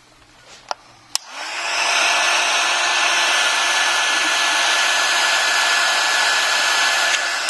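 Heat gun starting with a click about a second in, then building to a steady rush of blown air with a faint whine. It is heating the phone screen's home button bracket to soften the adhesive.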